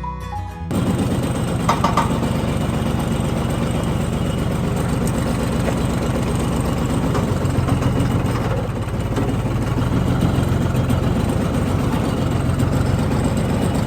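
John Deere tractor engine running steadily at idle.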